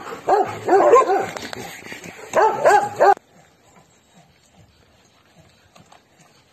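Several dogs behind a fence barking and yipping excitedly, short high calls overlapping one another. About three seconds in it cuts off abruptly, leaving only faint soft ticks as a dog eats from a bowl.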